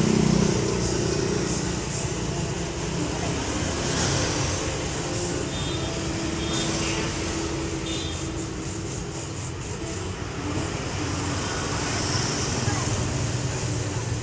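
Steady road traffic noise with indistinct voices talking.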